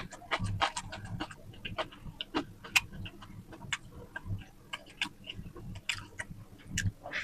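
A person chewing and smacking food close to the microphone: a fast, irregular run of wet clicks and soft thuds.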